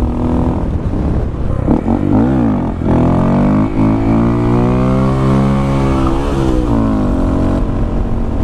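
Honda Grom's 125cc single-cylinder engine through a Yoshimura exhaust, revved up and back down quickly about two seconds in. It is then held on the throttle, its pitch rising and falling slowly over about four seconds as the bike is ridden in a wheelie.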